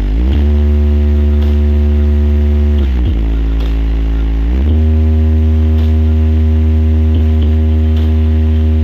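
Truck-mounted sound system playing a loud, sustained low bass tone through its subwoofer cabinets during a sound check. The pitch slides up just after the start, drops about three seconds in, rises again a second and a half later, and then holds steady.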